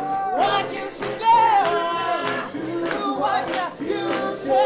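Singing with instrumental accompaniment, one held note wavering with vibrato about a second in.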